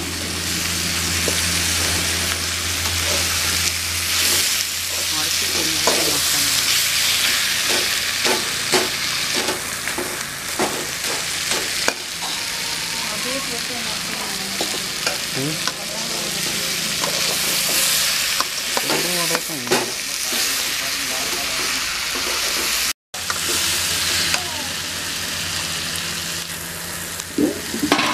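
Plantain curry of sliced plantain, onions and peppers sizzling in a metal pan while a slotted steel spatula stirs it, scraping and clicking against the pan. A steady low hum runs underneath, and the sound cuts out for a moment about two-thirds of the way through.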